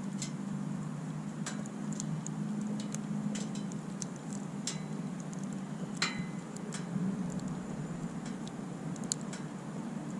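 Wood campfire crackling: irregular sharp pops and snaps over a steady low hum, the loudest pop about six seconds in.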